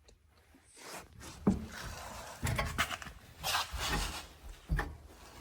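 Rustling and handling of car headliner material, with a few dull knocks.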